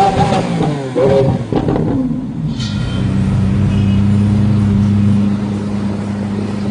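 Lamborghini Aventador SV's V12 engine revving briefly for the first two seconds or so, then settling into a steady low idle.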